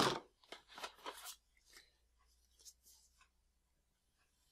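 Faint, short rustles and light taps of a plastic retail box and paper instruction booklets being handled during unboxing, most of them in the first second and a half.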